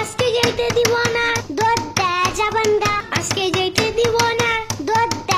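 Background music: a high-pitched voice sings a melody with held, gliding notes over a quick, even clap-like beat.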